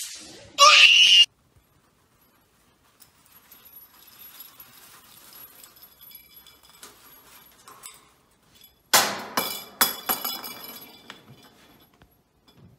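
A short loud burst of noise just after the start, then faint rustling. About nine seconds in comes a clatter of four or five sharp clinks and knocks in quick succession, each dying away.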